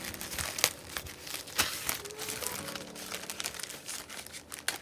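Parcel packaging being torn open and handled: irregular crinkling, crackling and tearing, with sharp clicks scattered throughout.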